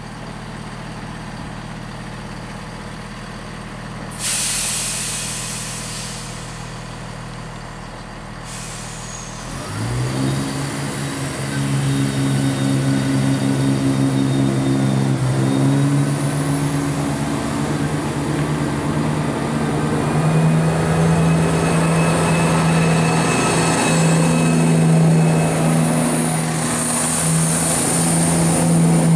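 Class 170 Turbostar diesel multiple unit idling, then a sudden loud hiss of air about four seconds in, lasting about four seconds, as its air brakes release. About ten seconds in its underfloor diesel engines rev up and it pulls away, the engine note stepping up as it gathers speed, with a high whine near the end.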